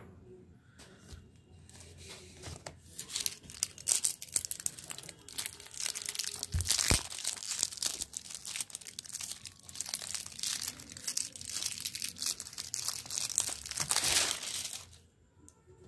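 Printed plastic wrapper crinkling and tearing as it is worked and peeled off a wound sediment filter cartridge: a dense, irregular run of crackles that starts a few seconds in and stops abruptly near the end.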